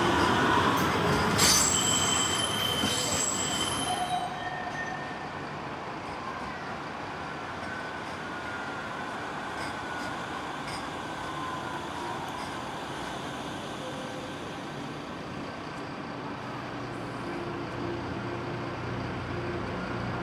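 Manchester Metrolink M5000 light-rail trams. One runs out past close by, and its wheels squeal high on the rails for a couple of seconds, about one and a half seconds in. A second tram then rolls in and pulls up at the platform, with a steady running rumble and its electric drive whining in gliding pitches as it slows. A low hum grows as it draws close near the end.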